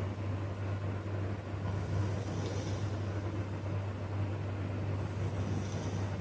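A sleeping person snoring, breathing slowly with a hissy breath about every three and a half seconds, twice here, over a steady low hum.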